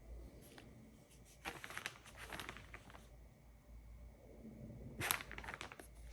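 Faint paper rustling and crinkling, in two spells: pages of an instruction manual being handled and turned.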